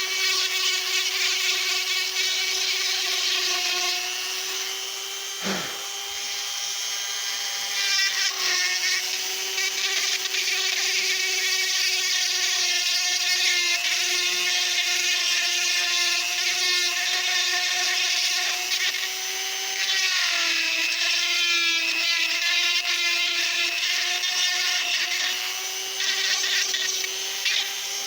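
Die grinder with a small narrow cutter running steadily, grinding out hard Acraglas bedding compound from a rifle stock's receiver groove. It makes a high whine whose pitch sags briefly a few times as the cutter bites.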